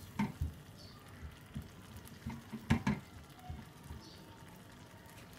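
Spatula stirring sweet potato chunks, jaggery and water in a steel pan: quiet wet stirring with a few sharp knocks of the spatula against the pan, two near the start and two close together about three seconds in.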